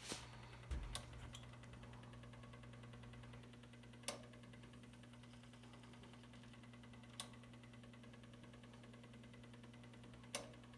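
Electrolux Prosdócimo washing machine running in its rinse cycle: a faint steady motor hum, with a sharp click about every three seconds.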